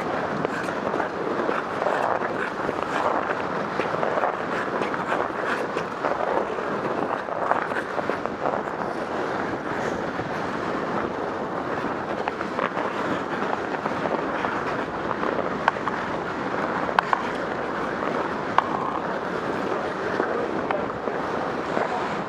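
Ice hockey skating on rink ice heard from a moving camera: a steady rushing scrape of skate blades, with a few sharp clacks, the clearest in the second half.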